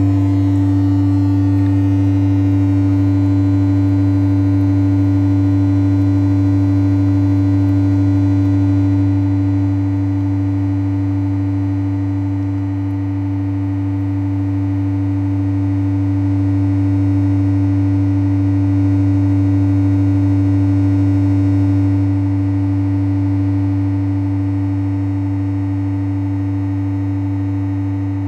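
Steady low electronic drone from a loudspeaker: two held low tones with many fainter overtones above them, the test tones that drive a laser cymatics display.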